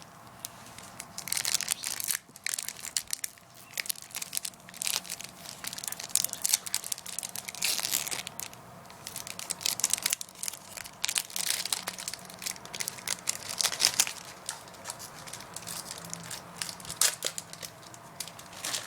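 Foil wrapper of a Pokémon trading card booster pack crinkling and tearing as the pack is opened by hand, in a string of irregular crackles.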